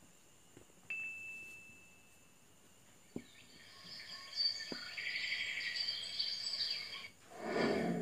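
A person whistling a high, warbling, bird-like call with quick trills, imitating a bird with the mouth. A short steady high ring comes about a second in, and a louder, lower sound comes near the end.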